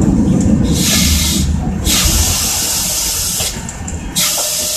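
Compressed air hissing in three bursts of about a second each from an Iyo Railway Moha 50 tram's air brakes, over the tram's low running rumble.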